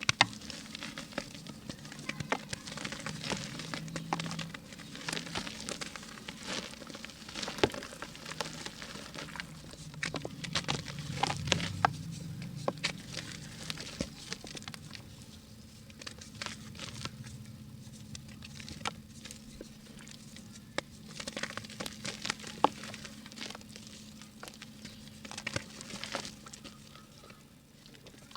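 Dry pink mud being crumbled by hand, a dense run of small crackles and patters as the clumps break apart, thinning out in the second half.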